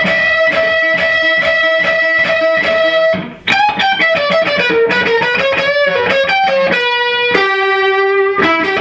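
Fender Stratocaster with single-coil pickups played through an all-tube amp, a distorted lead line: one high note picked rapidly and repeatedly for about three seconds, then a short melodic phrase ending on a long sustained note. The high lead tone thins out a little, but not badly.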